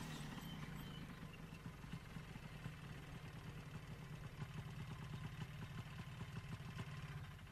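Quad bike (ATV) engine running steadily at low speed, a low hum with a rapid, even firing patter.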